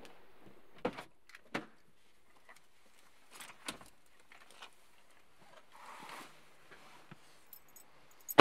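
Car door handling on a BMW coupe: a couple of sharp clicks about a second in, soft rustling as someone climbs in, then a loud thud at the very end as the door shuts.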